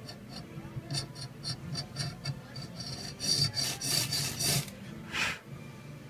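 Hacksaw blade with 24 teeth per inch, held by hand, sawing a shallow grip groove into a ferrocerium (ferro) rod clamped in a vise. Quick back-and-forth scraping strokes, about four a second, louder in the middle, with a last stroke near the end.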